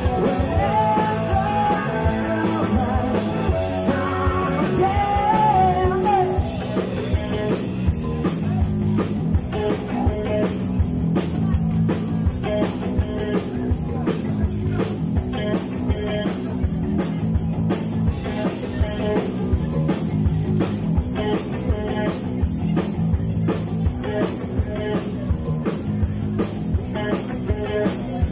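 Live rock band playing: electric guitar, electric bass and drum kit, with a singer's voice over it for the first six seconds or so, after which the band plays on without vocals to a steady beat.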